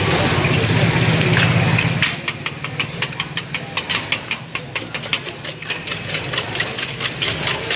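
Eggs being beaten with a wire whisk in a steel bowl: a fast, even clatter of metal on metal, about five strokes a second, starting about two seconds in. A steady low hum runs underneath, loudest before the whisking starts.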